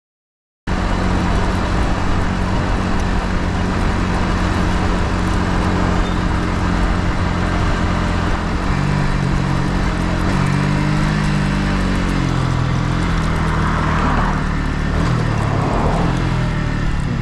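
Yamaha MT-15's single-cylinder engine running on the move, heard onboard over a steady rush of wind and road noise. It cuts in abruptly under a second in, and in the second half the engine note steps up and down as the throttle and gears change.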